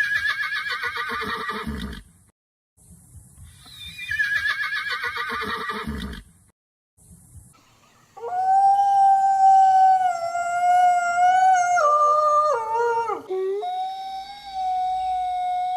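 A horse whinnying twice. Each call is a quavering cry that falls in pitch. Then comes a long, steady wolf howl that dips in pitch about two-thirds of the way through and levels off again.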